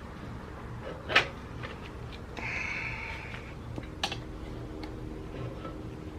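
A steel tire lever working a motorcycle tire bead over the rim, with two sharp metallic clicks about three seconds apart and a brief hiss between them.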